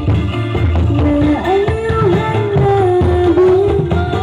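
Live music played loud through a large outdoor line-array sound system with subwoofers: a sustained, wavering sung melody over drums and heavy bass.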